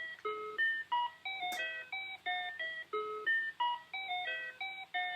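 Instrumental intro of a hip-hop beat: a looping melody of short, bright, pitched notes, about three a second, with the phrase repeating every few seconds.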